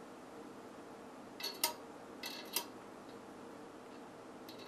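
Quarter-inch steel BBs dropped one at a time into an upright aluminum magazine tube, each landing as a quick cluster of metallic clicks. Three drops: about a second and a half in, about two and a half seconds in, and near the end.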